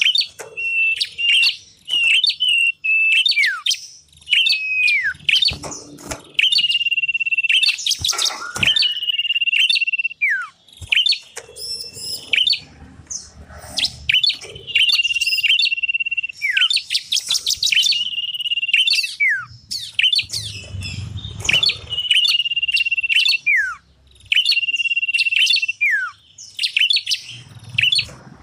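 Lure recording of small Indonesian songbirds (common iora, bar-winged prinia and tailorbird calls). Long, steady high whistles, several ending in a sharply falling note, alternate with rapid chattering trills, repeating over and over.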